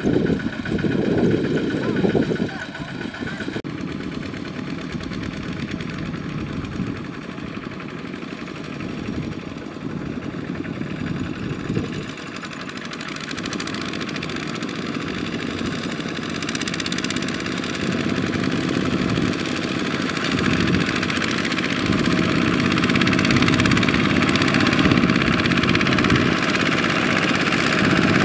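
Single-cylinder diesel engines of two-wheel walking tractors running while pulling loaded trailers; one grows steadily louder through the second half as it comes close.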